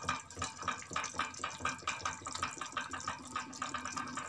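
Chicken simmering in the watery liquid it has released into a yogurt marinade in a frying pan: an irregular, quick crackle of small bubbles popping.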